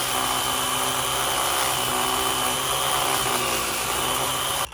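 Battery-powered electric chainsaw running steadily under load as it cuts into a thick tree limb, with a steady high whine over the cutting noise; it cuts off suddenly near the end. The chain is running loose and needs tightening.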